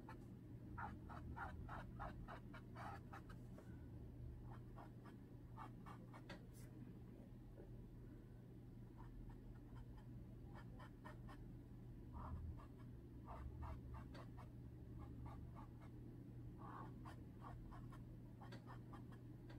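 Faint scratchy strokes of a small paintbrush on canvas, in quick runs of short dabs with pauses between, over a low steady hum.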